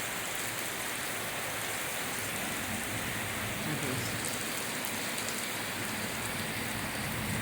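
Steady rushing of wind and water running down a mountainside, an even unbroken noise that echoes.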